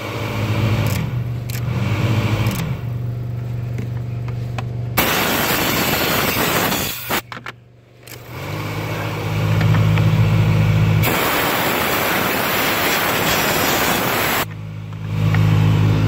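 Compressed-air blow gun blowing out the cabin-filter housing: two long bursts of rushing air that start and stop abruptly, the second about 8 seconds in, over a steady low hum.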